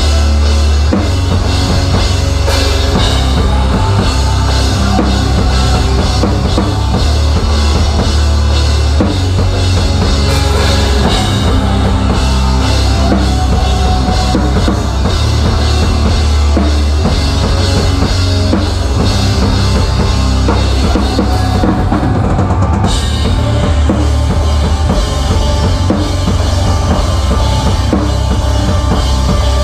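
Rock band playing live, heard from right over the drum kit: kick drum, snare and Zildjian cymbals up front over the band. The cymbal wash thins briefly about two-thirds of the way through.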